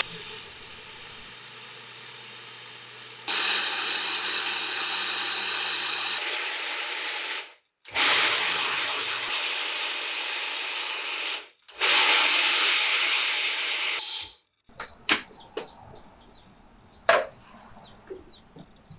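Food processor motor running as its blade grinds almonds into flour: softer for the first few seconds, then three loud runs that start and stop abruptly. In the last few seconds, a few sharp clicks and knocks as the processor's bowl and lid are handled.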